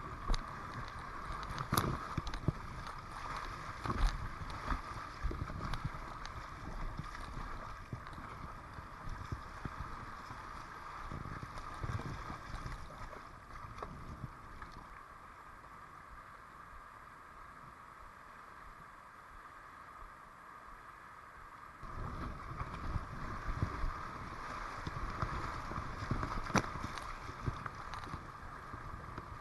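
Kayak running river rapids: water rushing and splashing around the hull, with paddle strokes and a few sharp knocks picked up by a camera mounted on the kayak's deck. The rushing eases off through the middle and grows louder again about two-thirds of the way through as the boat enters more whitewater.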